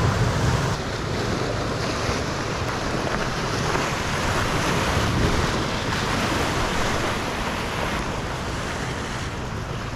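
Ocean surf washing and breaking against the rocks below, a steady noise with wind buffeting the microphone.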